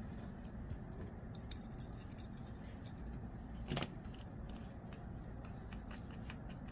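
Faint, scattered small metallic clicks and taps from a folding knife being handled during reassembly, with one louder click nearly four seconds in.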